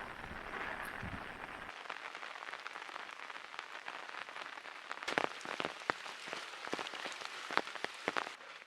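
Potato wedges frying in hot oil: a steady sizzle with scattered sharp pops and crackles, which grow louder and more frequent about halfway through.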